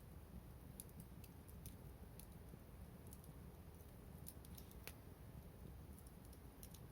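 Wood fire crackling faintly: sparse, irregular small pops and snaps over a low steady rumble.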